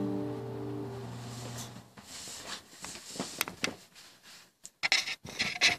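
The last chord of an acoustic guitar rings out and fades over the first couple of seconds. Then come rustling and a run of sharp clicks and knocks from handling, loudest in the second half.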